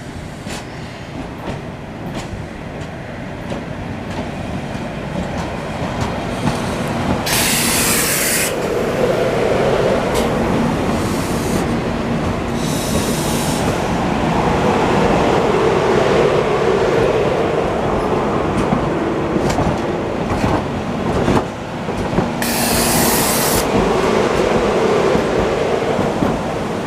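SEPTA Silverliner V electric commuter train running along the track, its steady rumble growing louder through most of the stretch. Three short bursts of high hiss come about 7, 13 and 22 seconds in.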